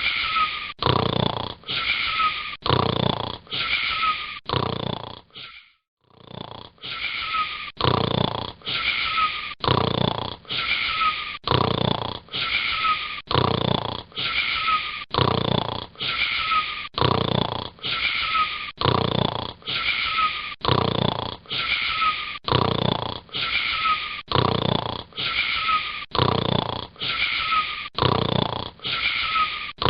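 A boy snoring in a fast, even rhythm, about one snore a second, with a short break about six seconds in.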